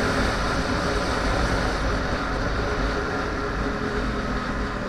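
2010 Yamaha R1 sport bike's inline-four running steadily at light throttle, mostly buried under heavy wind rush on the helmet-cam microphone at road speed. The sound eases gradually lower as the bike slows.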